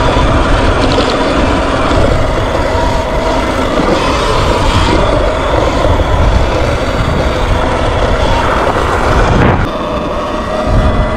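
Wind buffeting the microphone while riding a Sur Ron X electric dirt bike at speed, with a faint steady whine from its electric motor and chain drive under the rumble. The rumble eases briefly near the end.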